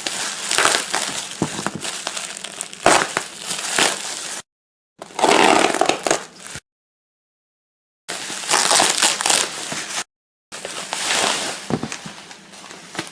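Packaging being unwrapped and handled: crinkling, crumpling rustle with sharp clicks. The sound cuts out to dead silence three times.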